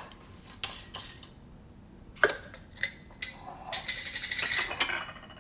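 Metal screw-band lid of a glass mason jar being unscrewed and set aside: a string of small metallic clicks and knocks, with a scraping rattle about four seconds in.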